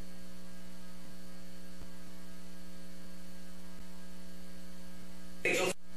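Steady electrical mains hum on the recording, a constant low drone with a buzz. Near the end a short, louder burst of sound cuts in.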